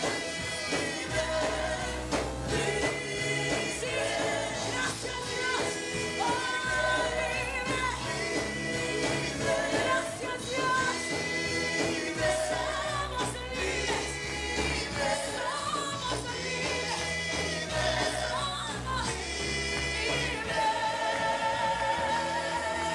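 Live amplified gospel worship music: a woman leads the singing into a microphone with several backing singers, over a band with electric bass guitar and keyboard.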